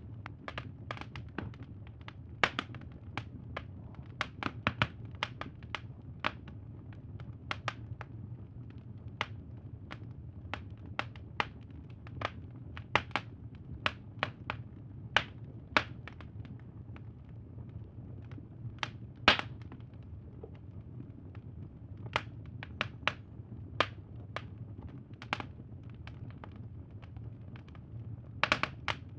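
Campfire crackling: irregular sharp pops and snaps of varying loudness, about one or two a second, over a low steady rumble.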